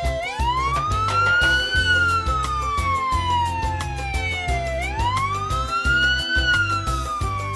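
Police siren wailing: a tone that sweeps up quickly and then falls slowly, starting a new rise at the very start, about five seconds in, and again at the end. Background music with a steady bass line plays underneath.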